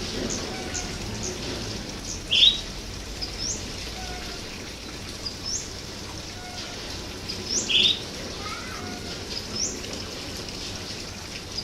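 Several wild birds calling. A short, high, rising chirp repeats about every two seconds, and a louder, lower chirp comes twice, about two and a half seconds in and again near eight seconds, over a steady background hiss.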